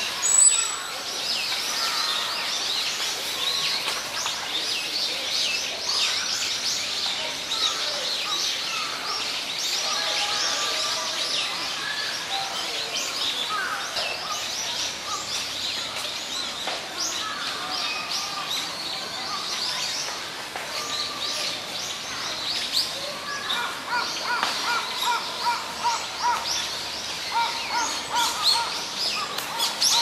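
A chorus of small birds chirping, with many short high notes overlapping throughout over a steady background hiss. Later on, a lower call repeats quickly, several notes a second, for a few seconds.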